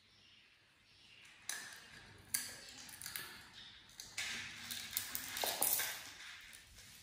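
Sunflower seeds rattling and clicking against a small dish and a plastic tub as they are poured and picked over. There are sharp taps about a second and a half in, again a second later and about four seconds in, then a denser run of clicking and rustling near the end.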